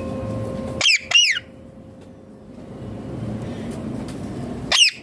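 Indian ringneck parakeet giving short, sharp screeching calls, each one sweeping up and then falling in pitch. Two come in quick succession about a second in and another near the end, over a steady low background rumble.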